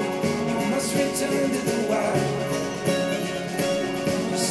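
A song playing through a pair of Yamaha HS8 studio monitors, picked up by microphones in the room.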